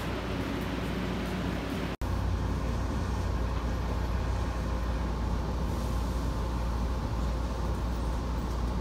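Station platform ambience: the steady low rumble and hum of a train standing at the platform, broken by a momentary dropout about two seconds in.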